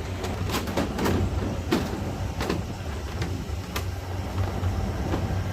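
A steady low mechanical hum with a handful of sharp clicks or taps in the first few seconds.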